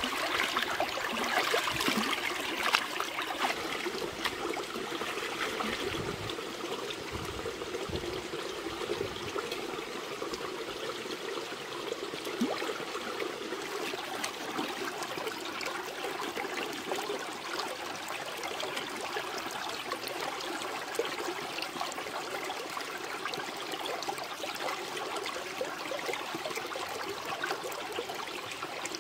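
Running stream water with splashing as a whole fish is rubbed and rinsed in it, loudest in the first few seconds. Steady flowing water follows, with small clicks and scrapes as a knife scores the fish on a rock.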